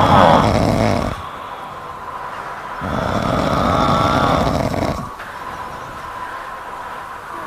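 Sleeping kitten snoring: one rough snore tails off about a second in, and a second one of about two seconds follows from about three seconds in.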